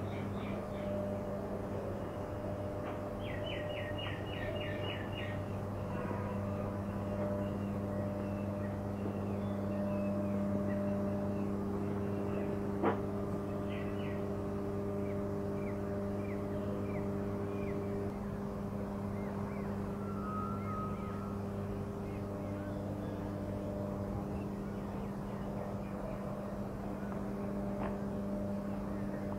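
Belt conveyor of a coal stacker-reclaimer running with a steady mechanical hum from its drive and turning idler rollers. Faint short high chirps sound over it, and there is one sharp click about 13 seconds in.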